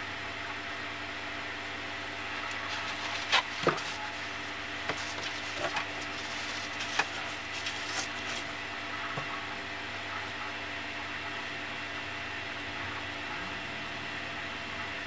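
Steady mechanical hum of workshop room noise, with a handful of light taps and knocks between about three and eight seconds in from handling at the work table while glue is brushed onto a leather belt strap.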